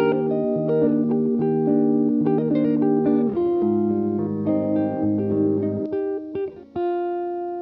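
Background music on guitar: plucked notes and chords over a bass line, ending on a held note that slowly fades.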